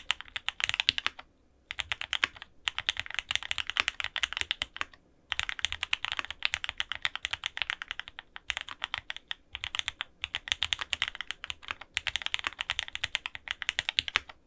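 Fast typing on a custom mechanical keyboard with lubed Gateron Oil King linear switches, a polycarbonate-bottom F1-8X case, an FR-4 plate and GMK keycaps. It comes in quick runs of keystrokes broken by short pauses.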